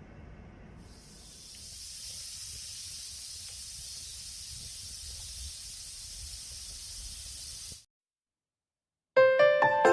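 Steady hiss of steam escaping from an Afghan pressure cooker, starting about a second in and cutting off abruptly. Music starts just before the end.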